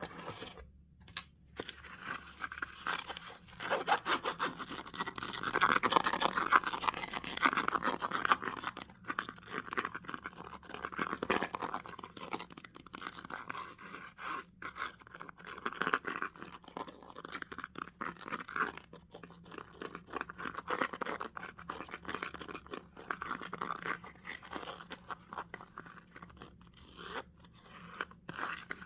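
Close-miked ASMR tapping and scratching: a dense, continuous run of quick light taps and scrapes.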